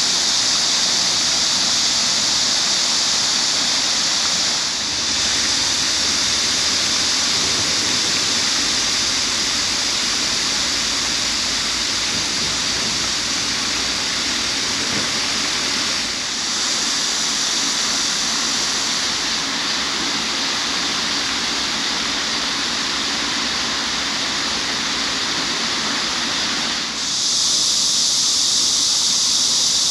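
Dense, continuous chorus of cicadas, a loud high-pitched hiss with a lower rushing noise beneath it; the mix changes abruptly a few times.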